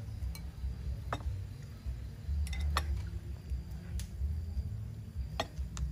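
Wooden chopsticks clicking and clinking now and then against a glass serving bowl and ceramic bowls as noodles are lifted and served, a handful of short sharp clicks over a steady low rumble.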